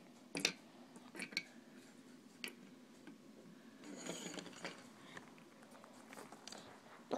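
Small plastic toy pieces being handled and set down on a tabletop: a handful of faint clicks and knocks, with a brief rustling scrape about four seconds in.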